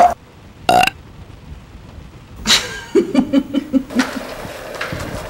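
Human laughter: two short breathy bursts, then about three seconds in a quick run of 'ha-ha-ha' pulses. A steady low hum takes over near the end.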